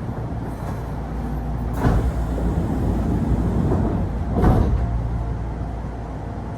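Sliding doors of a Kintetsu train closing, heard from inside the car: a short burst about two seconds in and a louder one a couple of seconds later, over the low steady hum of the standing train.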